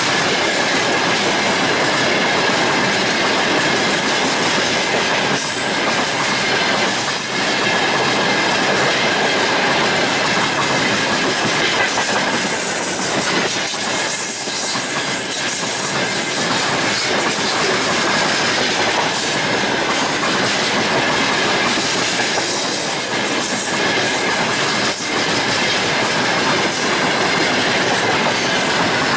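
Freight train of open-top gondola wagons rolling past close by: loud steady wheel-on-rail rumble and clatter, with a thin high ring held over it.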